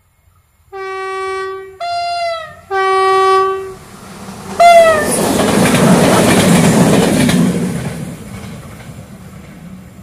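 Horn of a Croatian HŽPP passenger multiple unit sounding a two-tone pattern: low, high, low, then a short high note, with the high notes sagging in pitch as they end. The train then passes close by, a loud rushing rumble with wheel clatter that peaks and fades away.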